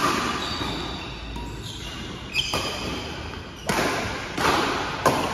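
Badminton rackets striking a shuttlecock several times, the sharpest hit near the end, with a short squeak of shoes on the court floor partway through.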